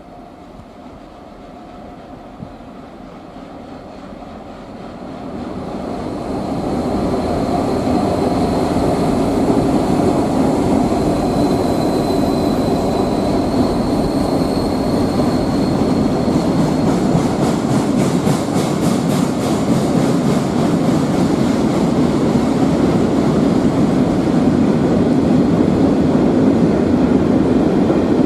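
A train approaching and running past on the rails, growing louder over the first several seconds and then staying steadily loud, with a thin high squeal in the middle.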